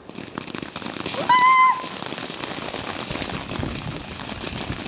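Ground fountain firework spraying sparks, with a dense crackling hiss that starts suddenly. A brief high-pitched voice cries out about a second and a half in.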